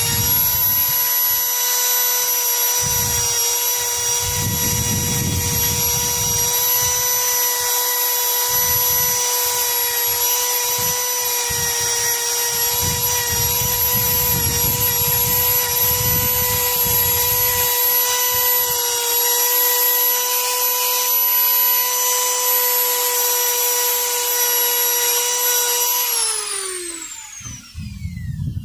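Handheld electric rotary tool running at a steady high whine while it is worked against rusty pliers to strip the rust, with uneven scraping underneath. Near the end the motor is switched off and winds down, its pitch falling away.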